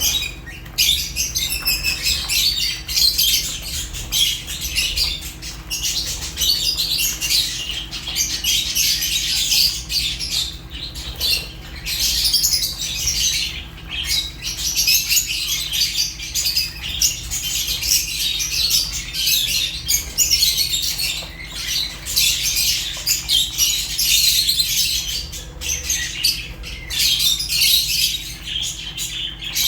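A group of lovebirds, Fischer's and rosy-faced, chattering nonstop with dense, high-pitched chirps and squawks. There are only a few brief pauses.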